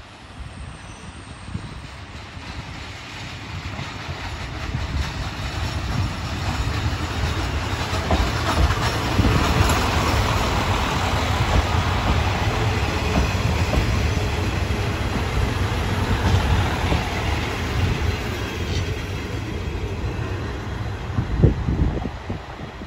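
Two-car diesel train, a KiHa 32 coupled with a KiHa 54, pulling into the station: engine rumble and wheels on the rails growing louder as it nears, loudest about halfway through as it runs past, then easing off. A single sharp knock near the end.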